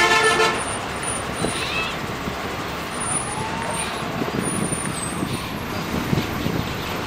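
Bus riding along, heard from on board: a steady rumble of engine and road noise. A short horn honk sounds right at the start.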